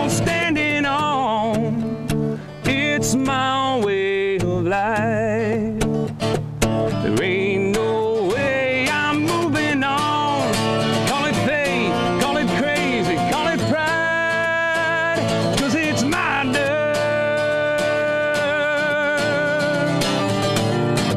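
Country song with guitar accompaniment and a lead melody line that wavers in pitch; the music dips briefly about two and six seconds in.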